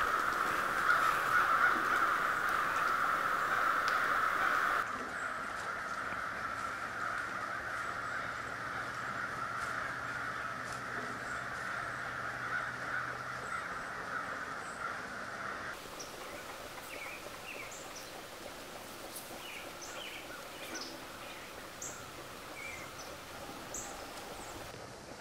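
A large flock of birds calling together in a dense, continuous chatter, loudest for the first five seconds and stopping about sixteen seconds in. Scattered short high chirps of small birds follow.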